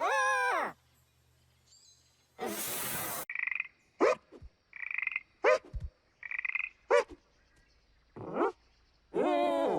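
Cartoon sound effects of a frog croaking: three short croaks about a second and a half apart, each followed by a quick sharp squeak. A call falling in pitch opens and closes the stretch, and a short hiss comes just before the croaks.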